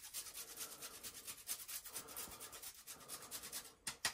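A block of pecorino romano grated by hand over a plate: quick rasping strokes, several a second, stopping shortly before the end.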